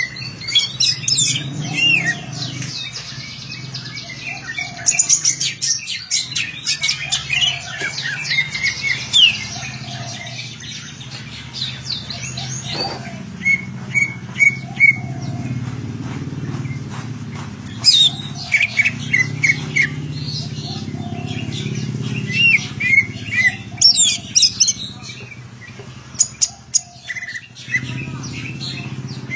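Green leafbird (cucak ijo) singing in bursts of quick, varied chirps and whistles, with short pauses between phrases, over a steady low hum.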